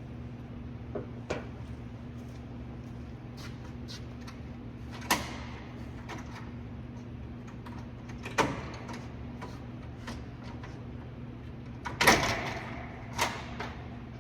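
A few knocks and clunks, like a vehicle door or body panel being handled, the loudest about twelve seconds in, over a steady low hum.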